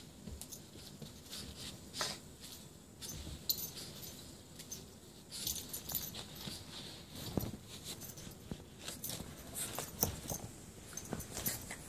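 Boston Terrier puppy playing and rolling on carpet and a fabric tree skirt: scattered scuffling and rustling with light metallic jingles from its collar, and a few soft thumps.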